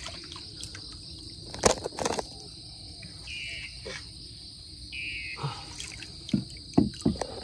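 Steady high drone of crickets or other insects, with a short chirp repeating every second or two. A few sharp splashes of water break in about two seconds in and again near the end, the loudest sounds here.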